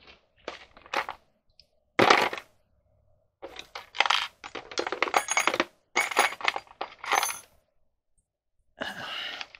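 Small metal tools being handled and sorted, clinking and clattering in short sharp strokes, with one louder clatter about two seconds in and a busy run of clinks with a metallic ring in the middle.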